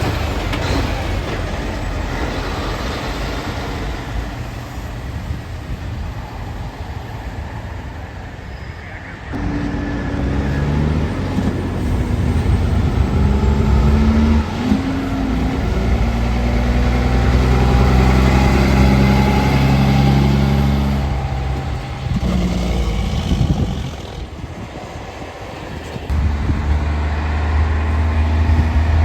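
Heavy diesel trucks running past on the road. One engine's note steps up and down in pitch several times as it pulls through its gears, and another loud, low rumble comes in near the end.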